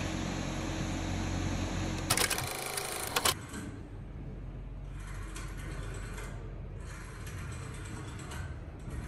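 Steady hum of a ventilation system. About two seconds in it is cut off by a loud burst of dense clicking noise lasting about a second. A quieter room ambience with faint swells of hiss follows.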